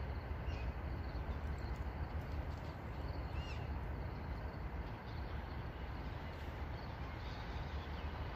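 A few faint, short bird calls from a flock flying over the trees, the clearest a little over three seconds in, over a steady low outdoor rumble.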